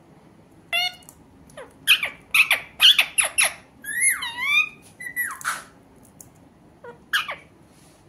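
Alexandrine parakeet calling: a run of loud squawks and chattering calls with sliding pitch for several seconds, then two short calls near the end.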